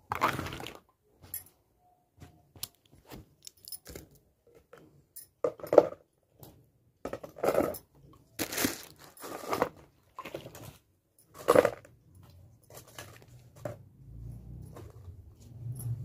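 Household things being handled and packed into a plastic tub: irregular knocks, clacks and rustling, with a low hum coming in near the end.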